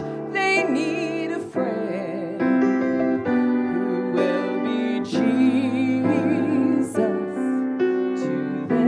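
A woman singing with vibrato while accompanying herself on a grand piano.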